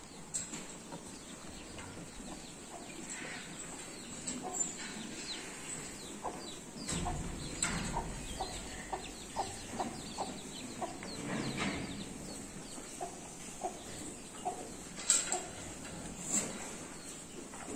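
Hen clucking: a run of short, repeated clucks, thickest from about seven to fifteen seconds in.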